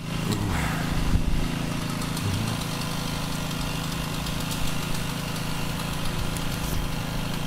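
A small engine idling steadily, a continuous even drone with scattered light clicks and knocks over it.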